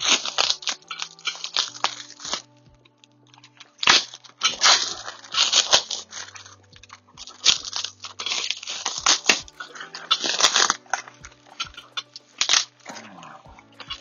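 Packaging being torn and crumpled off new exhaust parts, plastic wrap and tape crinkling in several bursts with short pauses. Quiet background music underneath.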